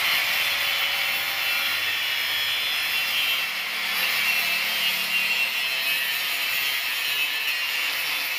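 Handheld angle grinder cutting through a steel motor-mounting bracket on a bicycle: a steady, loud, high grinding hiss of the disc on metal, with the grinder motor's whine underneath.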